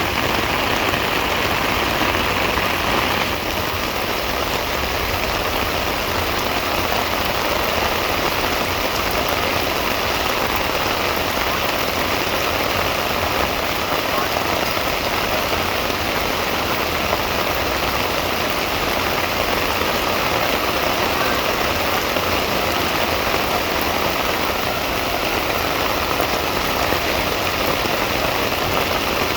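Steady rain falling, a constant even hiss of rain that eases slightly about three seconds in.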